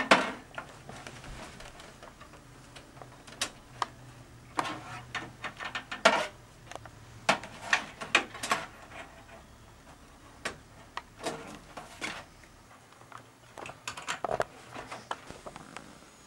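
Irregular clicks, taps and knocks of cable connectors and hardware being handled and pushed into place inside a desktop PC case.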